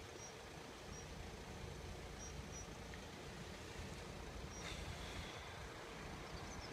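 Quiet outdoor background with a steady low rumble and a few short, high bird chirps, and a brief soft whoosh about halfway through.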